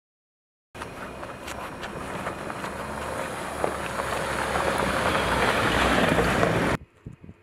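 Jeep Wrangler Rubicon driving over a rocky dirt trail toward and past, tyres crunching on gravel with the engine's low hum underneath. It grows steadily louder as the Jeep nears and cuts off abruptly near the end.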